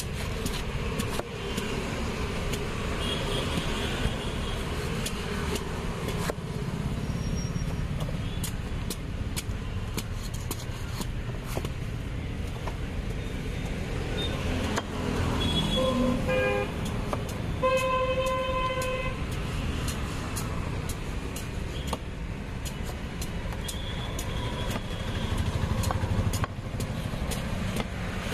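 Steady road-traffic rumble with vehicle horns honking: a few short toots about halfway through, followed straight away by one longer blast. Throughout there are scattered sharp clicks and knocks from a long knife paring raw jackfruit on a wooden chopping block.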